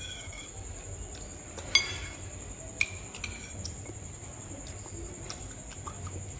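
Metal spoon clinking against a bowl a few times as food is scooped, the loudest clink with a short ring a little under two seconds in.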